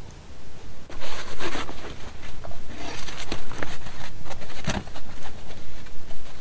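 Plastic tarp rustling and crinkling as it is handled over a shelter frame, with scattered clicks and a sharper knock about two-thirds of the way through. The rustling starts about a second in.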